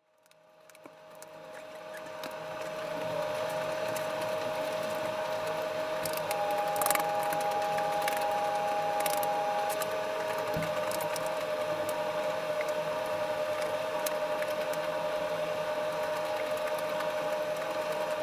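A steady mechanical hum with a constant whine in it, fading in over the first few seconds and then holding level, with a second, higher whine for a few seconds in the middle and a few faint clicks.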